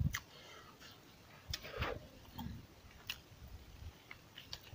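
A person biting into and chewing a large piece of cooked pork: scattered soft clicks and wet mouth smacks.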